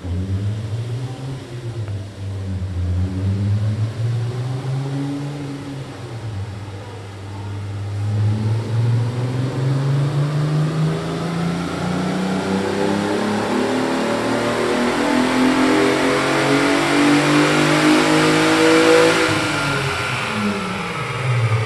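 Volkswagen Jetta wagon's VR6 engine, with its intake muffler deleted, making a full-throttle dyno pull in third gear. After a few seconds of lighter revving the engine note climbs steadily in pitch for about twelve seconds, getting louder toward the top, then the throttle lifts and the revs fall away near the end.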